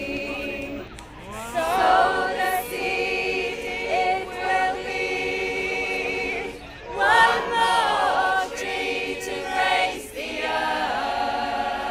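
Mixed choir of women and men singing unaccompanied in harmony: held chords in phrases, with short breaks about a second, six and a half seconds and ten seconds in.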